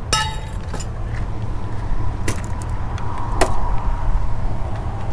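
Wind buffeting the microphone. Over it come a few sharp metallic clinks and clicks as fishing rods and reels are handled, the first one ringing briefly.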